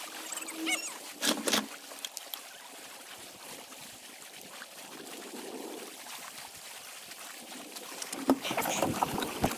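A few sharp knocks about a second in, then a faint steady haze of wind and water. Near the end, close rubbing and knocking from the camera being handled on its mount.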